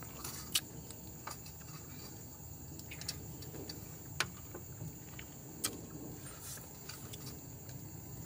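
A steady high insect trill, like crickets, under a faint hiss, with a few short sharp clicks scattered through, the strongest about half a second in.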